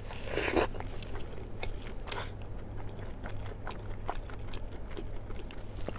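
A person bites into crunchy food close to the microphone, then keeps chewing, with many small crunches scattered throughout. A louder bite or crunch comes right at the start and another about two seconds in.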